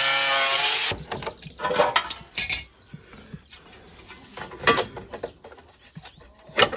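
A power tool runs loudly and cuts off about a second in. Then come scattered metallic clinks and knocks, with a sharp one near the end, as sheet-metal body panels are handled.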